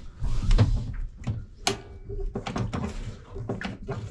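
Irregular knocks and clicks from a Foxbody Mustang's brake pedal and footwell as the pedal is pushed down by hand to test the brakes. There is one louder knock about half a second in, then a run of smaller clicks in the second half.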